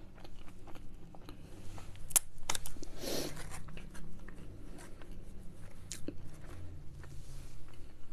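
Close-miked eating sounds of fast food: bites and chewing with short crunchy clicks, loudest about three seconds in.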